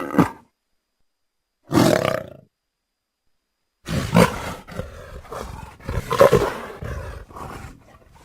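Dinosaur sound effect for a Dryptosaurus, layered from lion roars and an 'infected' creature roar. The tail of one roar ends just after the start, a short roar comes about two seconds in, and a longer roar breaking into rough growls runs from about four seconds on.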